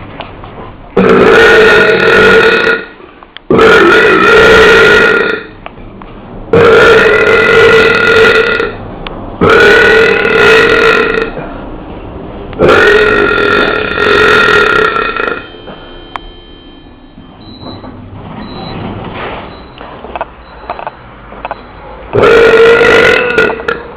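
A person belching loudly six times in a row, each burp long (about two seconds) and held on a fairly steady pitch. There is a quieter gap of several seconds before the last burp near the end.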